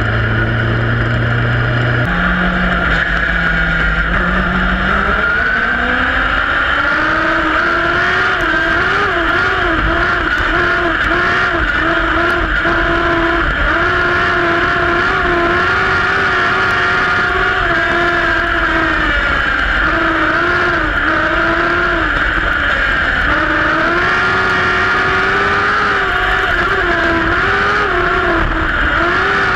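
Compact speedcar engine at racing revs, heard from an onboard camera. It is low and steady for the first couple of seconds, climbs in pitch over the next few seconds as the car accelerates, then stays high with the pitch dipping and rising again and again as the throttle is eased and reapplied.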